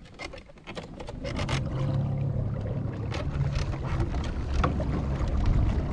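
Electric trolling motor on a small duck boat running with a steady low hum that comes in about a second in, after a few light knocks.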